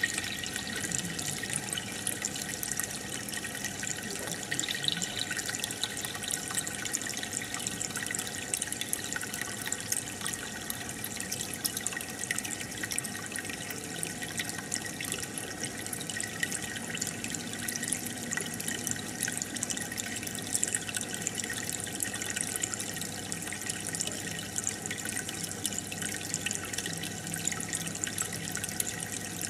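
Home aquarium water trickling and bubbling steadily, with a constant patter of small drips and bubble pops.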